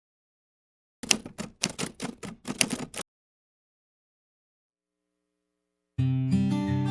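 A quick run of about a dozen sharp clacks, like typing keys, lasting about two seconds, then silence. Music with plucked guitar starts near the end.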